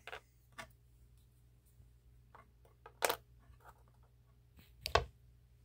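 A few light clicks and taps of small 3D-printed plastic model parts being handled and set down; the loudest comes about three seconds in, and another near the end carries a dull thump.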